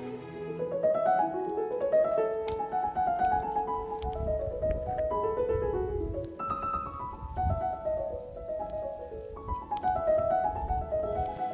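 Background instrumental music: a piano playing quick runs of notes that climb and fall.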